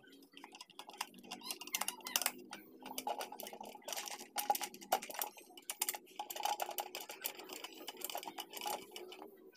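Irregular small plastic clicks and ticks as the housing of a TOA horn speaker driver is handled and closed back up, with small screws being fitted around its base by hand.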